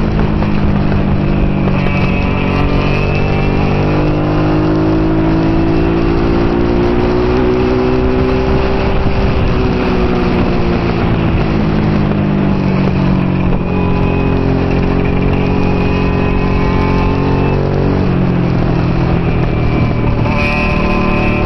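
Honda NT650 Hawk GT's V-twin engine at racing speed, heard from an onboard mount, its pitch climbing and falling as the throttle opens and closes, with a few sudden steps in pitch at gear changes in the second half. A steady rush of wind and road noise runs under it.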